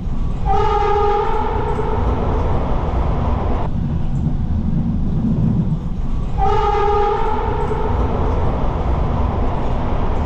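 MARTA Hitachi CQ311 rapid-transit train sounding its horn twice, about 1.3 s per blast, the blasts about six seconds apart. Heard from aboard, over the steady rumble of the train running on the track.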